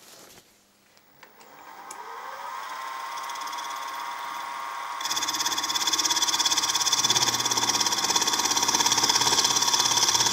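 Small milling machine's spindle motor spinning up with a rising whine, then running steadily. About five seconds in, the end mill starts cutting the metal pedestal foot, and the sound grows louder with a fast, even cutting chatter.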